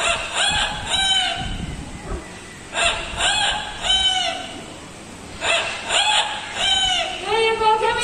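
Double yellow-headed Amazon parrot imitating a rooster's crow three times, each crow a run of arched notes that rise and fall.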